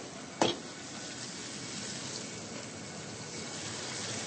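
Faint, steady sizzle of food frying in oil in a pan on the stove, with a single sharp knock about half a second in.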